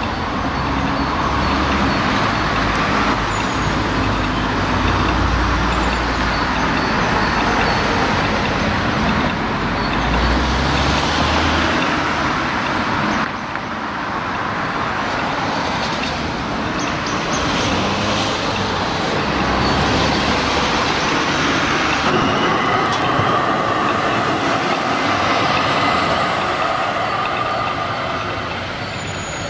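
Narrow-gauge Bogestra tram railcar (M type) running on the track, a steady rolling rumble of wheels on rails. Over the last several seconds, as it pulls away, a steady whine rises above the rolling noise.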